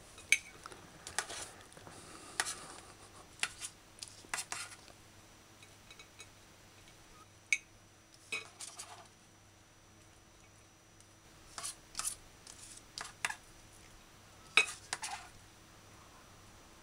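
Kitchen knife clinking and scraping on a ceramic plate and a plastic cutting board as chopped onion is pushed onto the plate: scattered short clinks and scrapes with quiet gaps between.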